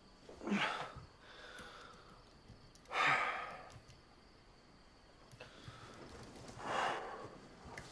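A man sighing heavily three times, a few seconds apart, as he sits up in bed hung over and nauseous from drinking.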